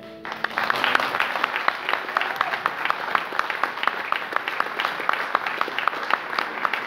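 Church congregation applauding: many hands clapping, breaking out almost at once and holding steady.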